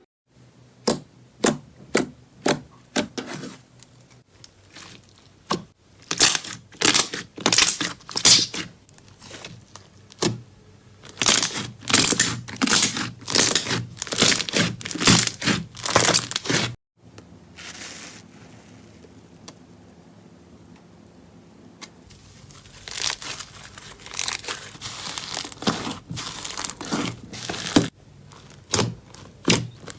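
Crunchy slime being squeezed and pressed, giving repeated bursts of crackling and crunching. It breaks off abruptly about halfway through, stays soft for a few seconds, then the crackling starts again.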